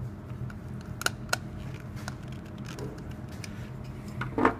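Screwdriver working a terminal screw on a plastic light fixture base as the neutral wire is tightened down: a few sharp clicks about a second in, then a louder knock near the end. A steady low hum runs underneath.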